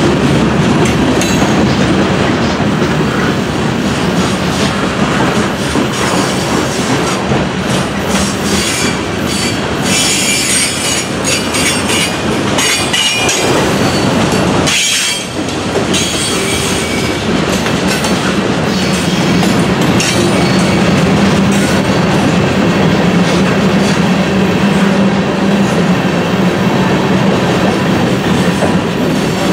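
Freight cars of a mixed freight train rolling past: a steady rumble of steel wheels on the rails with clickety-clack over the rail joints and patches of high wheel squeal, mostly in the first half. The sound dips briefly about halfway through.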